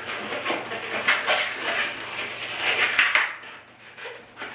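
Latex modelling balloons rubbing and squeaking against each other as they are twisted and handled, in an irregular run of scratchy squeaks.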